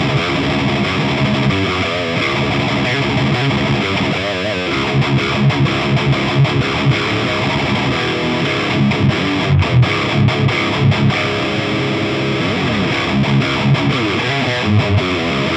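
Distorted electric guitar riffing through an Orange Rockerverb 100 MKIII valve head, with an MXR 10-band EQ pedal in front boosting the highs and cutting the lows to give the tone more bite and attack. Rhythmic low-note chugs pulse through from about a third of the way in.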